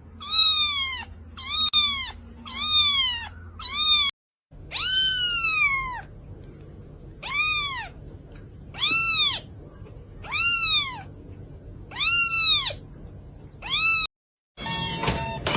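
A cat meowing over and over in high, rising-then-falling meows: five quick ones close together, then after a brief break about six longer, slower ones. Music comes in near the end.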